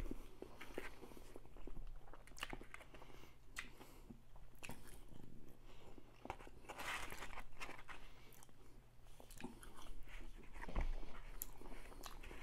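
A person biting into and chewing a crispy fried chicken sandwich with onion rings and bacon, close to the microphone: irregular wet mouth clicks and crunches.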